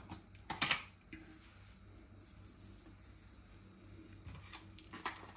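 A few light clicks and taps of kitchen items being handled in the first second, then low, quiet room tone with a couple of faint taps near the end.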